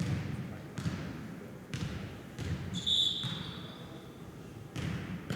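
A jokgu ball being kicked and bouncing on the court, a series of irregular thuds, with a short high-pitched squeak about three seconds in.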